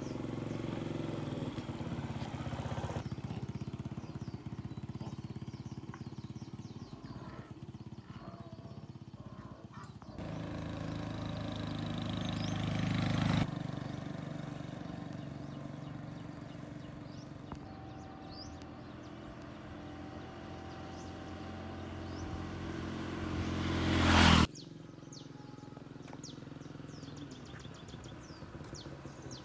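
Small underbone motorcycle's engine running as it rides off and along the road; twice it grows louder as it nears and then cuts off abruptly.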